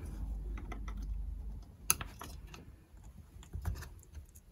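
Irregular small clicks and taps of a screwdriver against a chainsaw's plastic housing while a rubber carburettor pipe is worked through a hole, with one sharper click a little under two seconds in.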